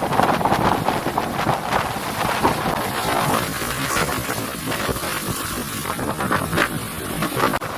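Strong wind buffeting the microphone in irregular gusts, over the rush of big waves breaking on the beach.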